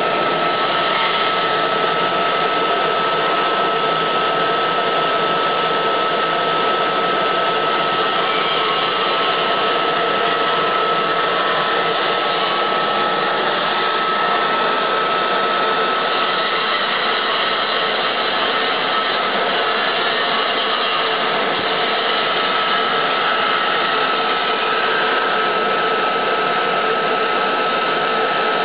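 PWR-series oil mist collector running steadily while it draws in a heavy water mist: an even blower rush with a steady high whine.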